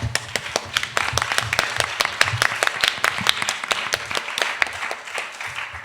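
Audience applauding: many hands clapping at once, thinning out near the end.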